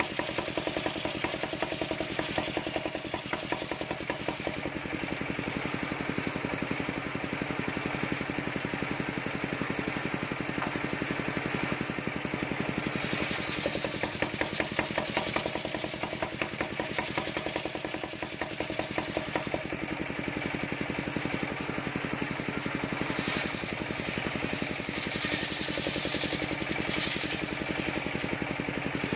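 Large homemade circular saw bench running steadily with a rapid knocking rhythm from its drive while ripping teak planks; a louder hissing cutting noise comes and goes in stretches through the second half as the blade bites into the wood.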